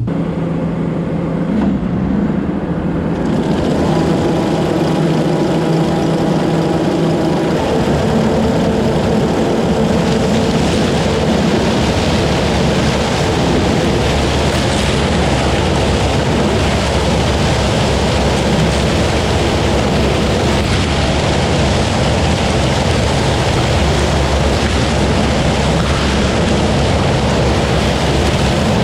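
Combine harvester running, its engine hum joined over the first ten seconds or so by a dense, steady rush of machinery noise that then holds.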